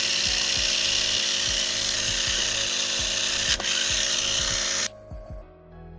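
Tamiya Mini 4WD car on an MS chassis with 3.5:1 gears, its small electric motor and gear train running free in a loud, steady high whir on a power-on test. A single click comes partway through, and the whir cuts off suddenly near the end as the car is switched off.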